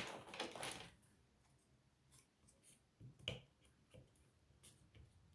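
A few faint clicks and scrapes of a prying tool working at a Samsung phone's glued-in battery, the clearest about three seconds in, with near silence between.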